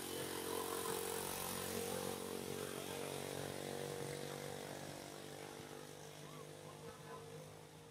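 An engine running at a steady speed, a constant drone that grows fainter over the second half.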